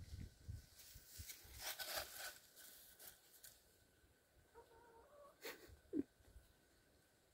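Near silence, broken about two seconds in by a Great Dane's faint sniffing, with a single faint click a few seconds later.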